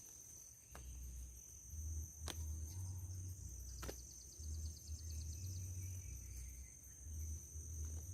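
Insects, such as crickets, trilling steadily on one high tone, with a faster ticking trill in the middle. Intermittent low rumbling and a few sharp clicks.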